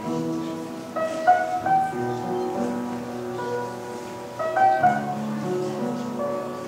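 Upright piano playing chords with a melody on top, the notes ringing on after each stroke.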